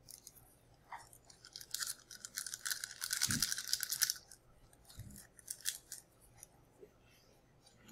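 Rapid scratchy rustling for about two and a half seconds, with a single soft low thump near its end, from a small plastic bottle being handled.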